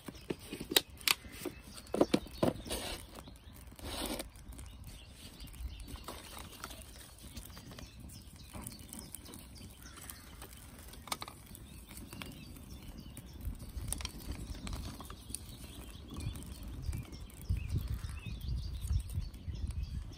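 Freshly lit twig kindling fire crackling and popping as resin-soaked birch bark burns, with sharp pops thickest in the first few seconds, then sparser. A low rumble builds in the second half.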